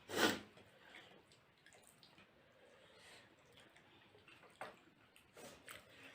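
Close-up eating sounds of chicken momo (steamed dumplings) being eaten: one short wet squelch just after the start, then faint wet mouth clicks and smacks, a few of them near the end.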